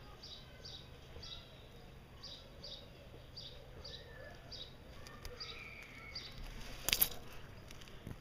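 Faint high chirps repeated about twice a second in the background, with a short rustling noise about seven seconds in.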